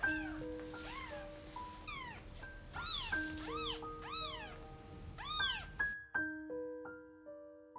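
A kitten mewing over and over, short high arching mews one after another, with background music of held notes. The mewing stops about six seconds in while the music goes on.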